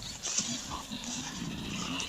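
Wild boar grunting in a series of short, low grunts.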